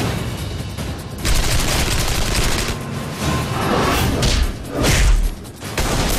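Action-trailer soundtrack: dramatic music with rapid bursts of gunfire and heavy booms, the biggest booms about a second in and about five seconds in.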